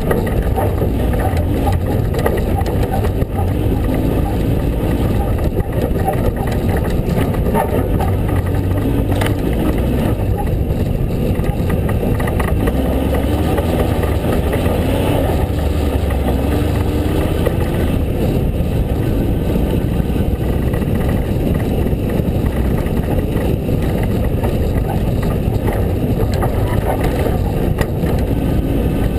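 Ford Ranger pre-runner driving over a rough dirt trail, heard from the hood: a dense, steady rumble of engine, tyres and wind, with the engine's pitch rising and falling in places and a few short knocks from bumps.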